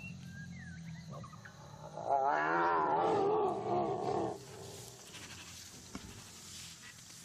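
Tiger roaring once: a single wavering call about two seconds long, starting about two seconds in.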